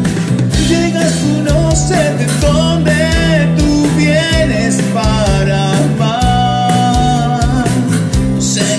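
Pop-rock band playing: strummed acoustic guitar, keyboard, bass and electronic drum kit under a wavering lead melody line.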